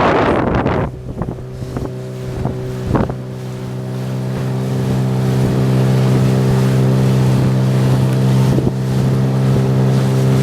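Wind buffeting the microphone for about the first second, then a steady engine hum that grows slowly louder and holds an even pitch, with a few light splashes early on.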